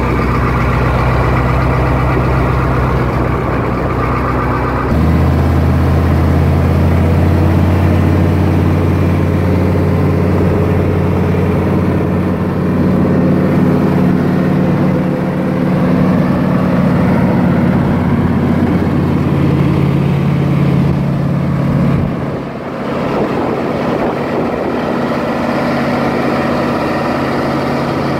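Diesel engine of a Grove rough-terrain crane running. It idles, speeds up to a higher, louder steady speed about five seconds in, and drops back to a lower speed about three quarters of the way through.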